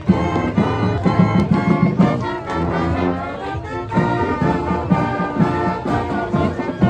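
High school marching band playing live, brass instruments over a steady drum beat.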